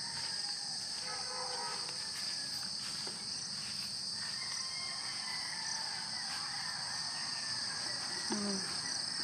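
Steady high-pitched chorus of insects, like a cricket chorus, droning without a break.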